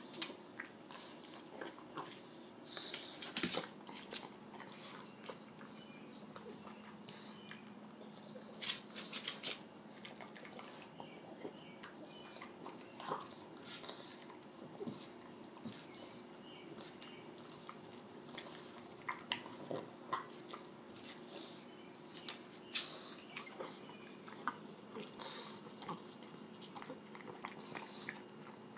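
A pug chewing and biting into watermelon: irregular short smacks and crunches of eating, some louder bites standing out.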